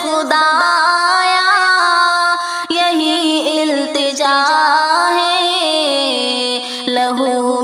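A woman singing a mournful Urdu nazm, long held melodic notes that slide from one pitch to the next.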